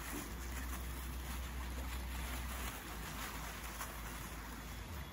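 A small stream running, a steady rush of water, with a low wind rumble on the microphone that fades near the end.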